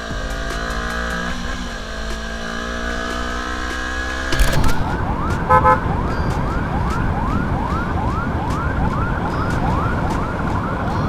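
A sport motorcycle's engine running steadily as the bike rides. About four and a half seconds in the sound cuts abruptly to a siren in rapid rising sweeps, about two and a half a second, over road noise, with two short beeps just after the cut.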